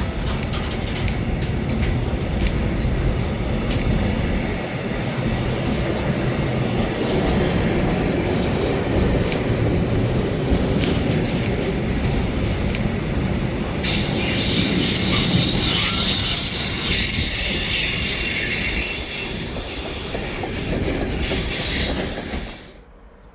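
Train running past on the rails with a steady low rumble. A little over halfway in, a high-pitched squeal of wheels on rail joins it, and the sound cuts off suddenly near the end.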